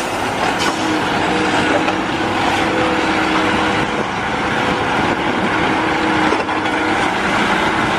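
Heavy diesel engine of an eight-wheeled tipper dump truck running steadily as the truck drives across a dirt site, a constant engine drone with a broad noisy wash.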